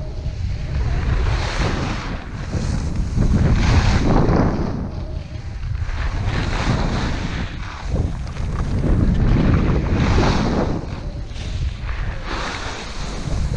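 Wind buffeting the microphone of a moving skier, with the swish of skis turning on packed snow swelling and fading about every two seconds.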